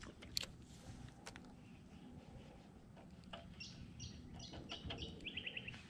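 A bird calling faintly: a run of short high chirps over the last couple of seconds, ending in a quick trill. A few faint clicks come in the first second or so.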